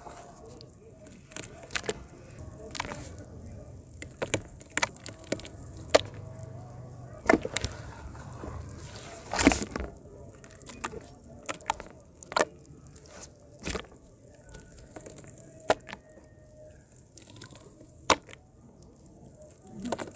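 Hands squelching and squeezing thick, watery mud slurry in a bucket: irregular wet splats and slaps, with one longer squelch about halfway.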